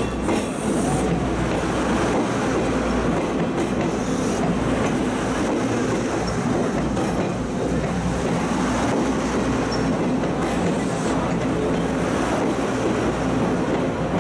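Diesel multiple-unit train of Taiwan's Pingxi Line passing at close range: its diesel engines run steadily under the continuous noise of its wheels on the rails.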